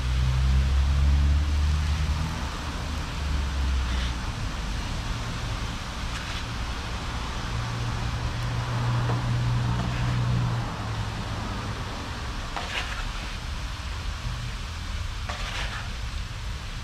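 A low rumbling hum that changes pitch a couple of times, with faint sizzling from the kazan of plov underneath and a few light clicks.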